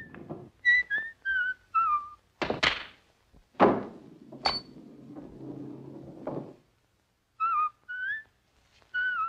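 Short whistled notes, then two sharp knocks of a cue and pool balls striking, followed by balls rolling on the table that end in a knock about six and a half seconds in. The whistling picks up again near the end.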